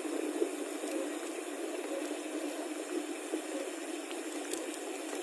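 Steady rushing noise of a bicycle on the move: wind over the microphone and tyres rolling on the road.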